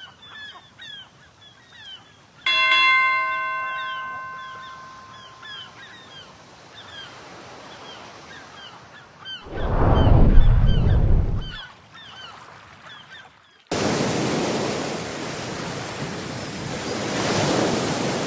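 Birds calling in short repeated cries throughout. A single struck ringing tone, like a bell, sounds about two and a half seconds in and dies away over a few seconds. A loud low rumble comes around ten seconds, then a steady rush of surf cuts in near fourteen seconds.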